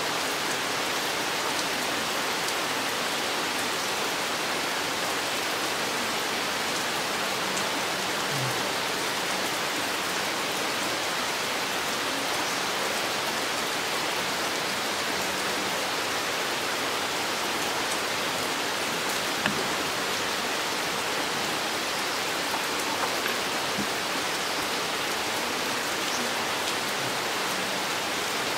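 Steady rain falling on a forest, an even, dense hiss with a few individual drops ticking out now and then.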